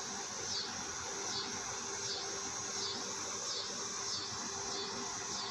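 Insect chirping: a high chirp repeating about every 0.7 seconds over a steady hiss and a faint low hum.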